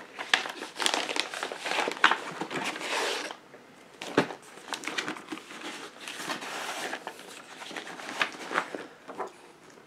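Clear plastic bag crinkling and rustling as hands handle it and slide the paper instruction manual out, in irregular stretches with a short lull a little after three seconds and a sharp click just after four seconds.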